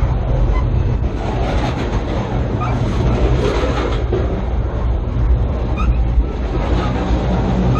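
Freight cars of the CSX Tropicana juice train rolling directly over a camera between the rails: a loud, steady rumble of steel wheels on the track, heard from underneath the cars.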